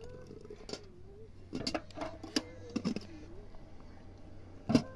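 Knocks and clinks of tea things and a plastic water jerrycan being handled, the sharpest knock near the end, over a faint wavering whistle-like tone.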